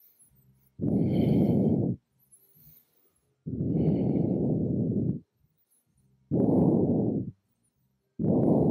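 A man breathing deeply and audibly while holding a yoga bridge pose: four long breaths, about two and a half seconds apart, with quiet gaps between them.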